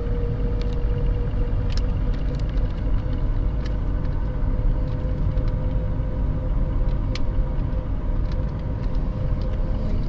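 Car driving, heard from inside the cabin: a steady low rumble of road and engine noise with a faint steady hum above it and a few light clicks.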